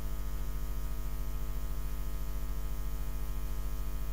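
Steady low electrical mains hum with a string of overtones, unchanging throughout.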